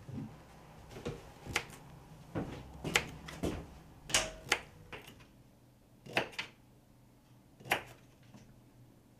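Knife cutting vegetables on a chopping board: sharp knocks at uneven intervals, about one every half second to a second and a half.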